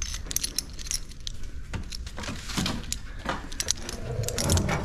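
Small metal parts clinking and jangling as they are handled: an irregular run of light clicks and rattles, busiest near the end.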